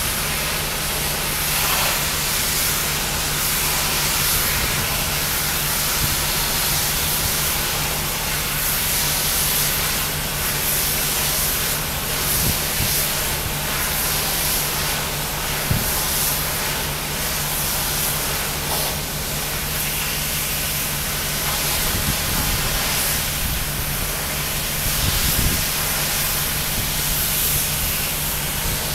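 Pressure washer running steadily: the constant hiss of a high-pressure water jet spraying the wall, over a steady engine hum.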